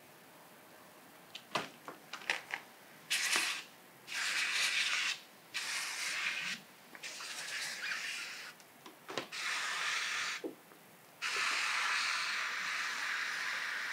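Hose-fed spray nozzle hissing out slip solution in repeated bursts of a second or so, ending with a longer burst of about four seconds, soaking under the edges of paint protection film. A few light clicks come before the first burst.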